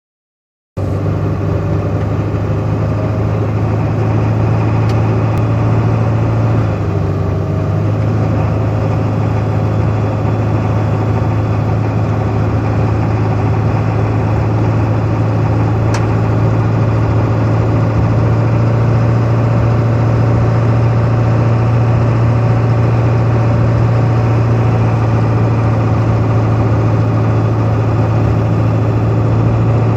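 Ford 7.3 Power Stroke V8 turbo-diesel running steadily with a knock/chatter that starts around 1500 rpm and is very noticeable around 1600 rpm. The owner does not know the cause and has already replaced the fuel filter, fuel pump and crankshaft position sensor.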